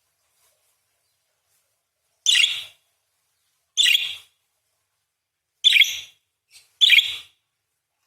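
Parakeet giving four short, harsh screeching calls a second or two apart, with a faint short call just before the last.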